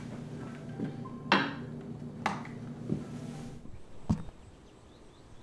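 A few sharp footsteps on a hard floor, spaced about a second apart, over a low steady room hum that drops away near the end.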